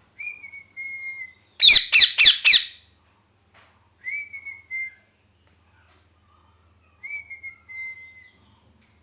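Pet ringneck parrot whistling short, slightly falling notes three times. About one and a half seconds in comes a loud burst of four shrill screeches, the loudest sound.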